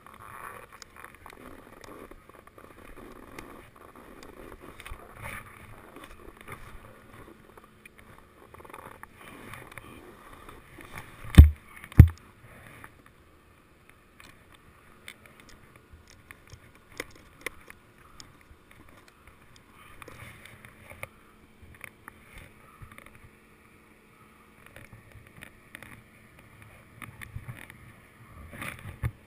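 Snowboard sliding and scraping over spring snow, picked up by a GoPro Hero 2 camera. A little past the middle come two loud, sharp knocks about half a second apart.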